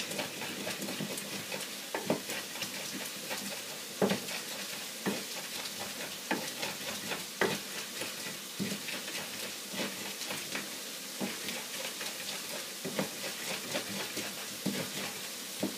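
Wooden pestle grinding ingredients by hand in a grinding bowl, with irregular knocks and scrapes about once a second, over a steady sizzle of food frying in a pan.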